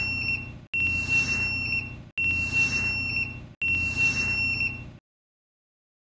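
Alarm buzzer of a motion detector sounding a string of long, high, steady beeps, one about every one and a half seconds, that stops about five seconds in. It signals that the detector has picked up a person walking through its protected area during a walk test.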